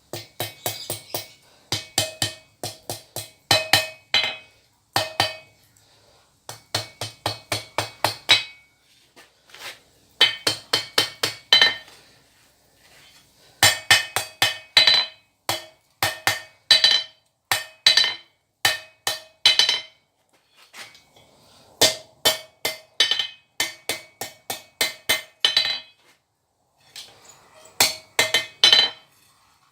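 Blacksmith's hand hammer striking steel on an anvil while forging tong jaws. The blows come in quick runs of about three a second, broken by short pauses, and the anvil rings with each blow.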